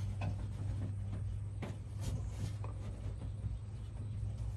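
Light rubbing and a few sharp knocks from a piece of sound-deadening panel being worked into place, over a steady low hum.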